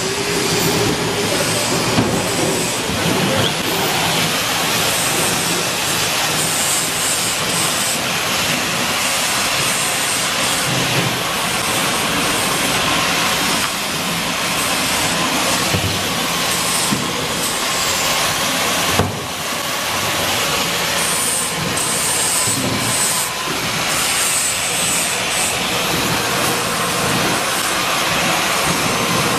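Steady, loud hissing workshop noise, like compressed air or running machinery, with a few faint knocks of metal wire frames.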